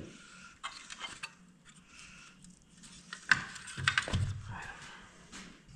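Small metal parts of a headlight housing clinking and clicking as they are handled and worked loose, with a sharp click about three seconds in and a duller knock just after.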